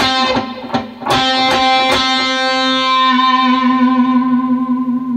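Electric guitar picking a few quick notes, then an octave pair of C's left ringing for about three seconds.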